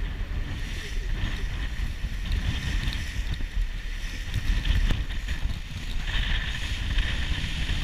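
Rigid inflatable speedboat under way: engine and water noise with wind buffeting the microphone, and a steady hiss that grows louder about six seconds in.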